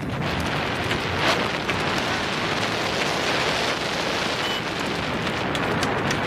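Steady rushing wind noise buffeting the microphone of a camera moving at speed, with a few faint ticks near the end.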